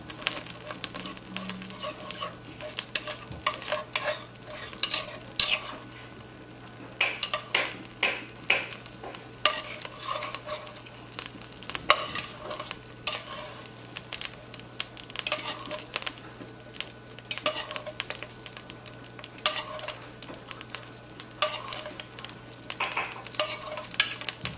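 Metal spoon scraping and clinking against the inside of a glazed clay cazuela, in irregular strokes, as a spoonful of pork lard is stirred and spread over the pot while it melts. A steady low hum sits underneath.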